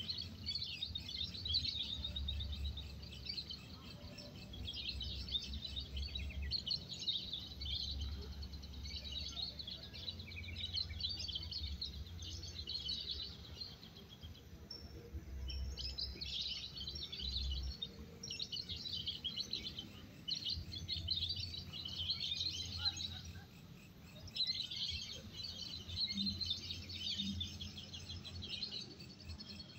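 Many caged songbirds singing at once at a bird-singing contest, a dense, continuous mass of chirps and trills, with an on-and-off low rumble underneath.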